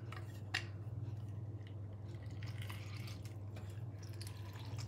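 Lemon being pressed in a hand-held lever lemon squeezer, the juice dripping onto raw chicken and spices in a bowl, with a single click about half a second in. A steady low hum runs underneath.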